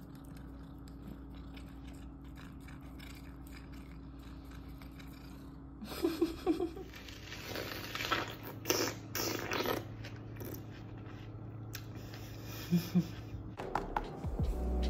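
Crunching bites into a watermelon slice: a few loud, sharp chomps and chewing, about six seconds in, after a stretch of faint low hum. Music starts near the end.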